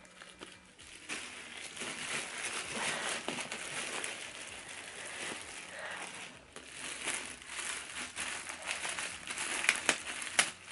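Clear plastic poly bag crinkling and rustling as hands handle the backpack wrapped inside it, with a few sharper crackles near the end.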